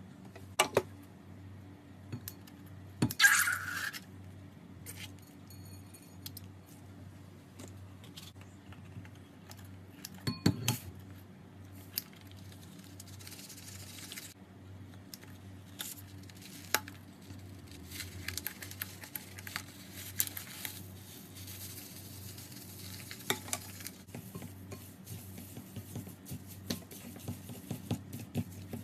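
Slime being stirred and worked in a bowl: wet crackly squishing with scattered clinks of a utensil against the container, over a faint steady low hum. A louder noisy burst comes about three seconds in, and the squishing gets busier from about eighteen seconds.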